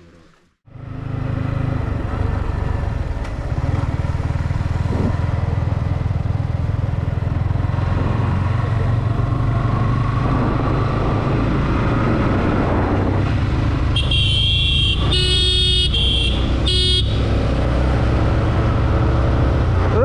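Motorcycle riding along, with the engine running and wind rushing over the microphone, starting about half a second in. A vehicle horn sounds in several short blasts near the end.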